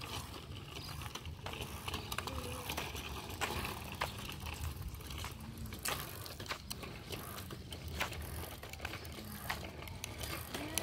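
A bicycle rolling along, rattling and clicking irregularly, over a steady low rumble.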